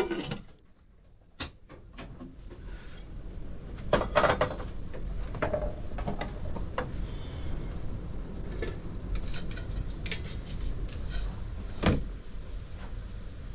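Household handling sounds: scattered knocks and clicks, loudest about four seconds in and near the end, with a run of small ticks in between, over a steady low background rumble.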